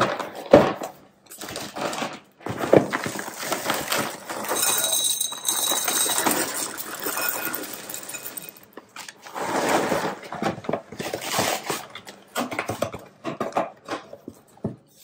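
A cardboard cereal box is opened with a few short rustles and knocks, then dry chocolate cereal pieces and mini marshmallows are poured into an empty glass bowl, a dense rattling patter of pieces hitting the glass that starts about four seconds in, with a second stretch of pouring a little later.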